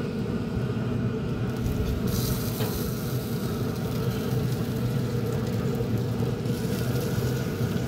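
Pellet grill running with its lid open: a steady low rumble, with a faint sizzling hiss between about two and six and a half seconds in.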